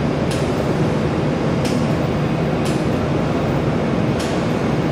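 Jewelry laser welding machine running with a steady hum, and four faint sharp ticks about a second to a second and a half apart as single laser pulses fire.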